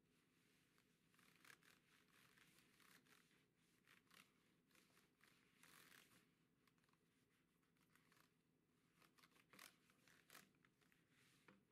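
Very faint, irregular rubbing of a Clorox disinfecting wipe over a Lenovo 100e Chromebook's keyboard keys and plastic body, with a few sharper scratchy strokes.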